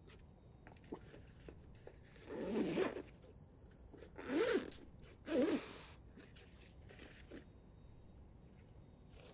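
A zipper pulled in three short rasping strokes, about two, four and five seconds in, against a quiet room.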